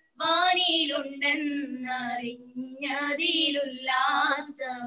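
A young woman singing a slow Malayalam Christian hymn, drawn-out sung phrases with brief breaths between them, heard through a Zoom video call.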